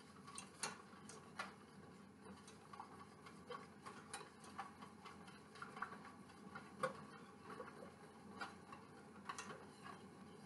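Faint, irregular light clicks and ticks of a stirring utensil against a stainless steel saucepan as lemon filling is stirred on the stove while it thickens.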